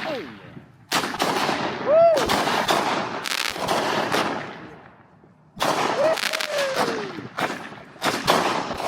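Small consumer novelty firework crackling: two rapid strings of sharp pops, a second and a half of quiet between them.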